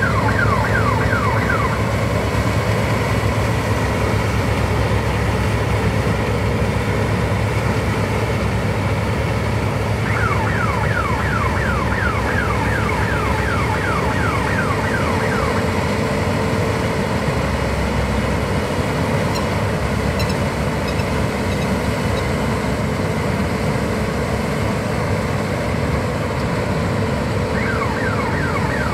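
NS29 mini combine harvester running steadily as it cuts wheat, making a constant machine drone. A rapid string of high, falling whistles comes in for several seconds around the middle and again near the end.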